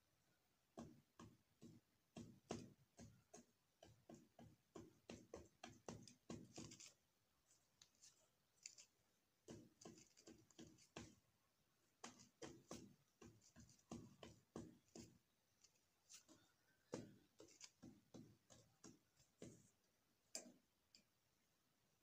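Faint, quick taps and clicks of doves pecking at seed on a cage floor, in runs of several taps a second with short pauses between them.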